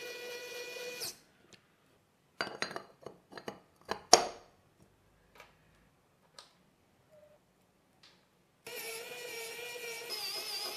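A small electric precision screwdriver whines steadily as it drives screws into a metal model-engine block. It stops about a second in and starts again near the end. In between comes a run of sharp metal clicks and knocks as parts are set in place, the loudest about four seconds in.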